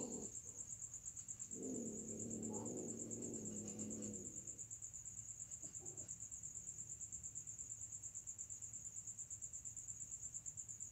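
Crickets chirping steadily in a fast, even high-pitched pulse. About two seconds in, a cat gives a low, drawn-out growling yowl lasting about three seconds.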